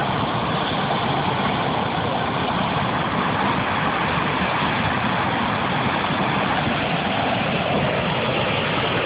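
Floodwater rushing steadily through a retarding basin's concrete outlet in flood, an unbroken rushing noise.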